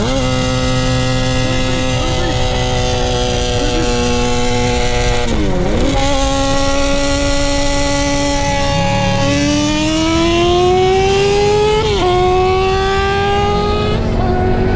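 A Dodge Charger Scat Pack's 392 HEMI V8 and a Suzuki GSX-R600 motorcycle at full throttle side by side in a roll race from 60 mph, heard from inside the car. The engine pitch climbs steadily and drops sharply at each upshift, three times.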